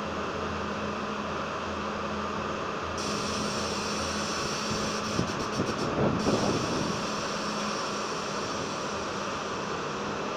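R42 subway train standing in the station with its equipment giving a steady hum. A few clunks and a louder rough patch come about five to seven seconds in.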